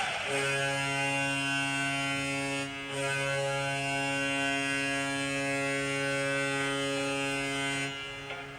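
Toronto Maple Leafs goal horn: a deep, steady horn blast of several tones sounding together for about seven and a half seconds. It dips briefly just before the three-second mark, then cuts off.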